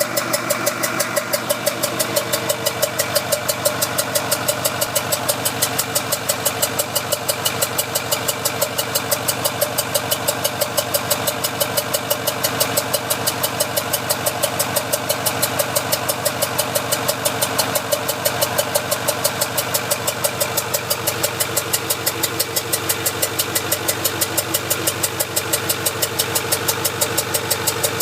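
Ford 6.4 Powerstroke V8 diesel engine idling with a regular popping noise: sharp pops several times a second in a steady, unchanging rhythm.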